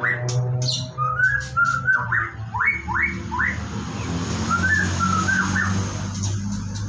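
White-rumped shama singing: quick runs of short whistled notes sweeping up and down, in two bursts, over a low steady drone.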